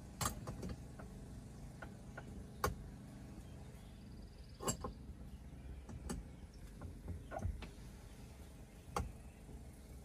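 Scattered sharp clicks and knocks of a wrench tightening the air line fittings on an Eaton 9-speed shifter, about six over ten seconds.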